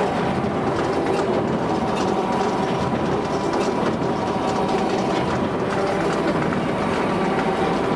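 Claas 3300 big square baler running empty, its ram, gears and intake mechanism clattering steadily with fast fine ticking, ticking over to warm its gearbox oils.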